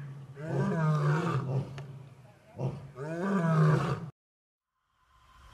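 Lioness roaring: two long calls, each rising and then falling in pitch. The sound cuts off abruptly a little after four seconds in.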